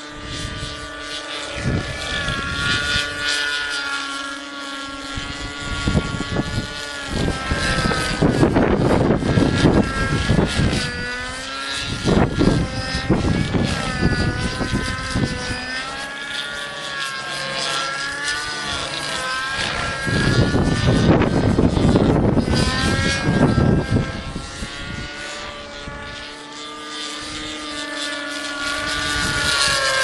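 Raptor 50 SE nitro RC helicopter flying overhead, its TT 53 glow engine with a 3D muffler whining, the pitch wavering up and down throughout. Gusts of wind buffet the microphone several times, loudest around a third of the way in and again about two thirds through.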